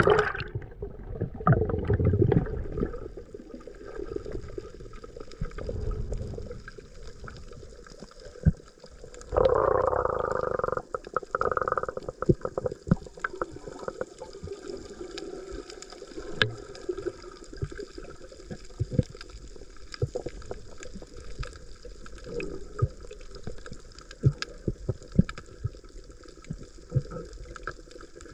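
Water gurgling and sloshing, with many scattered sharp clicks throughout and a louder rush of water for a couple of seconds about ten seconds in.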